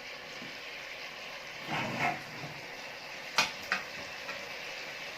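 Chunks of beef searing in hot ghee in a pot, sizzling steadily while a spoon turns them. There is a scrape about two seconds in, then two sharp clinks of the utensil against the pot a little after three seconds.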